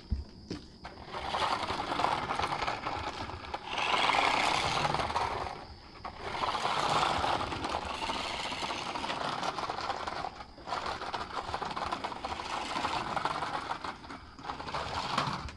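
Small electric motor and plastic gears of a Bezgar 20 toy-grade RC truck whirring as it drives, with its tires scraping and rattling over the ground. It runs in long spurts, easing off briefly about six, ten and a half and fourteen and a half seconds in.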